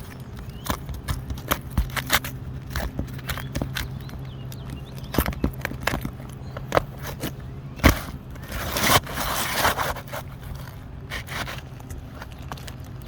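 Irregular clicks and knocks of hands-on work, with a longer scrape about nine seconds in, over a steady low hum.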